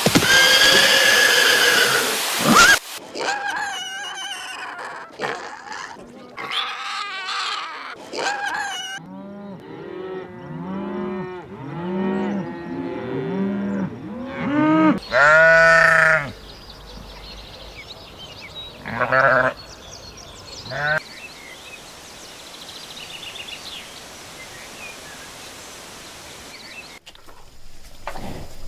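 Farm animal sounds, mostly bleating: a run of short overlapping bleats from several animals, then one loud single bleat and a couple of shorter calls. A loud, noisy sound of another kind fills the first couple of seconds.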